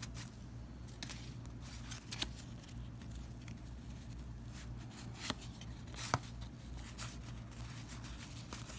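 Baseball cards being handled and flipped through: soft scattered ticks and slides of card stock over a steady low hum.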